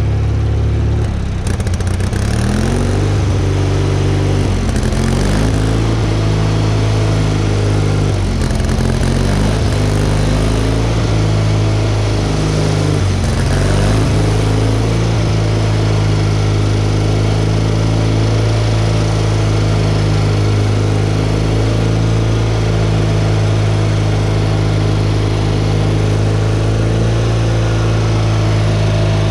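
Craftsman riding mower's 18 hp Kohler Magnum engine running, its speed dipping and recovering several times in the first half, then holding steady. It is running with a freshly fitted new belt.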